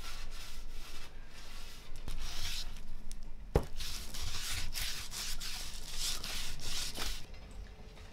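Cloth rags rubbing coffee stain onto wooden pegs and a pole in uneven swishing strokes, with a sharp knock about three and a half seconds in. The rubbing stops shortly before the end.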